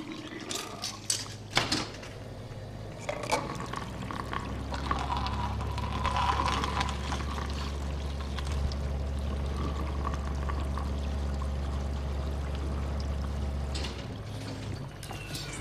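Coffee vending machine dispensing coffee into a paper cup: a steady pour over the machine's low hum, from about four seconds in until near the end, where it stops. It is preceded by a few sharp clicks and knocks.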